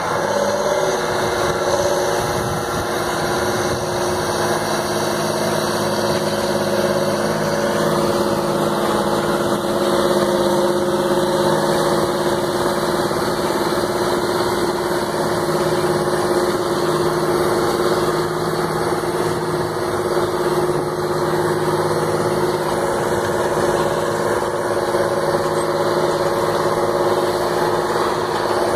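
John Deere 8R tractors' diesel engines running steadily as they pull tillage implements through a field, a constant even engine note with no changes in pitch.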